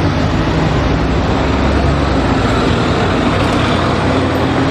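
Double-decker bus engine running as the bus pulls away from the stop, with road traffic noise around it; the engine note shifts about two seconds in.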